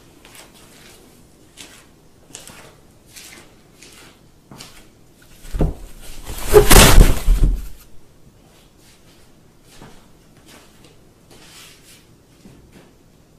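Scattered light crackles and taps, then a loud rustling scuffle lasting about two seconds, a little over five seconds in, as a cat pushes its head into a round object fixed to a wall.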